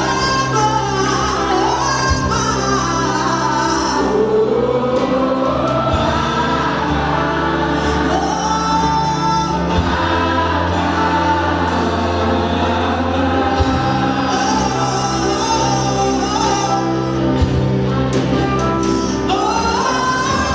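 A gospel band and singers performing live. Several voices sing long, gliding phrases over steady low bass notes.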